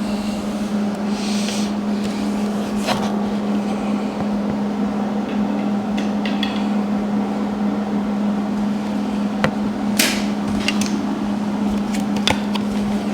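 Wire-feed welder humming steadily, with a few sharp clicks and taps scattered through, the loudest about ten seconds in.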